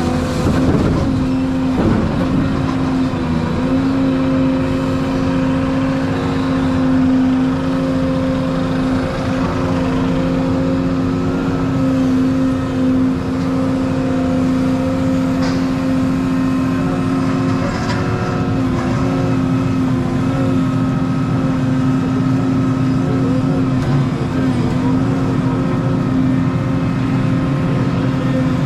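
Volvo 235EL excavator's diesel engine running steadily at working speed while the machine digs, heard from inside the cab.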